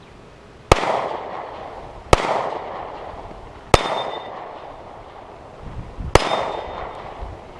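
Four single handgun shots, irregularly spaced over about six seconds, each a sharp crack with a decaying echo; after the last two a brief thin ring hangs on.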